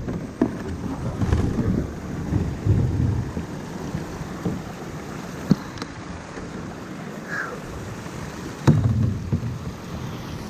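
Handling noise from gear on a plastic sit-on-top kayak: fabric of a dry bag rubbing close to the microphone and low rumbling, with a few sharp knocks of hard things against the hull, the loudest near the start and near the end.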